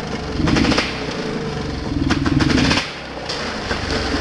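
Dirt bike engine running under the rider, revving up twice as the bike comes down the track into a mud hole: once briefly about half a second in, then longer from about two seconds in, easing off just before three seconds.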